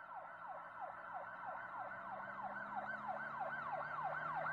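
Electronic siren in a fast yelp, its pitch sweeping up and down about three times a second and growing steadily louder, over a faint low steady drone.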